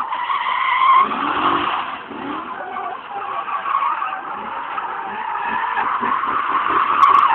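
Drift car sliding sideways with its tyres skidding and squealing, the engine held high in the revs with a wavering note. It gets a little louder near the end.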